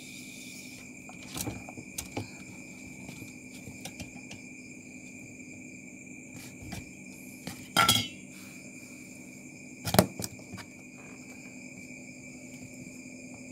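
A few sharp metallic clinks and knocks from the refrigerant charging gear (manifold gauge set, refrigerant can on its tap valve, hoses) being handled, the loudest about eight and ten seconds in, over a steady high hum.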